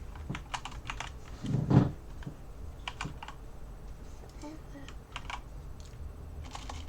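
Typing on a computer keyboard: irregular key clicks throughout, with a short vocal sound a little under two seconds in.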